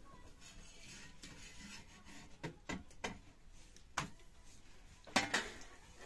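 Metal cooking utensils clinking and scraping against a flatbread griddle and a steel bowl: a few sharp clicks and knocks, the loudest cluster a little past five seconds in.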